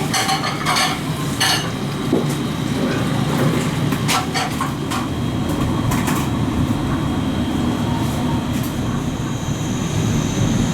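Dishes and cutlery clinking at a station noodle counter over a steady low rumble of station noise. A steady high whine comes in near the end.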